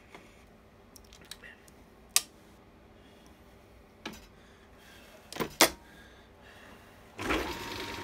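A few sharp metallic clicks and knocks as the capstan lathe is set up, then about seven seconds in the small World War I capstan lathe starts and runs steadily with a whine.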